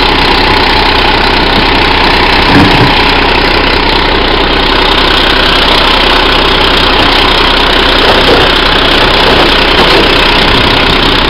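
Iveco Acco garbage truck's diesel engine idling steadily at close range.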